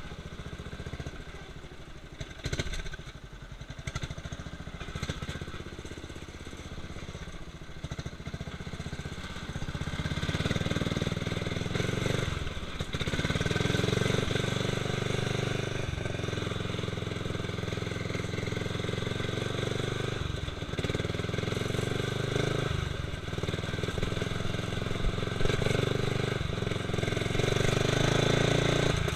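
Engine of a Murray widebody lawn tractor running under load, with scattered knocks in the first part, getting louder about ten seconds in, then dipping briefly several times.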